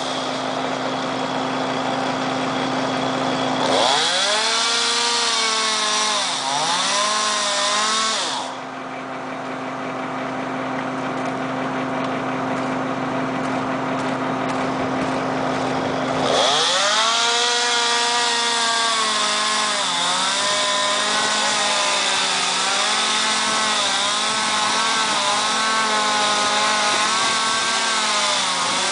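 Chainsaw running and cutting into pine, its engine pitch swinging up and dipping as the bar loads in the wood, over a steady low drone. The saw eases off about eight seconds in and comes back hard at about sixteen seconds.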